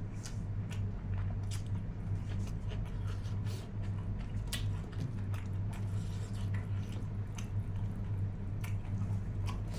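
Close-up chewing and biting of cooked mutton shoulder meat: wet, irregular smacks and clicks of eating, over a steady low hum.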